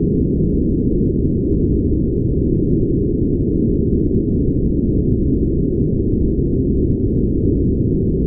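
Brown noise: a steady, deep, even rush with no treble, unchanging throughout.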